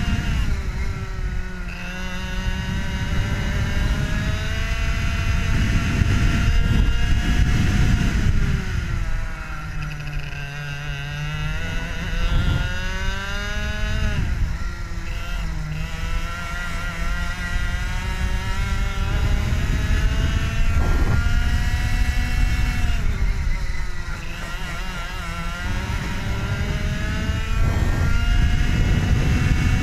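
IAME two-stroke kart engine running at racing speed. Its pitch climbs steadily along each straight and drops back several times as the kart brakes for the corners.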